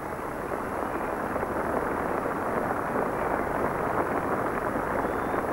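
A large crowd of spectators applauding, with dense, steady clapping that swells over the first second.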